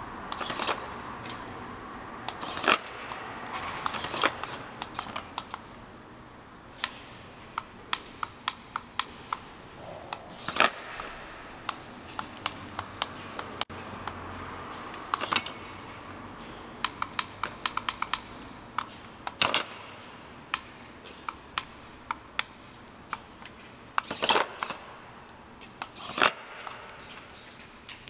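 A remote-controlled pencil case's small mechanism working in short goes: runs of quick clicks and several brief, harsh half-second bursts, stopping and starting.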